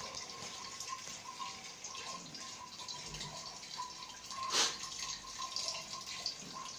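Water running and dripping, with one sharp click about four and a half seconds in.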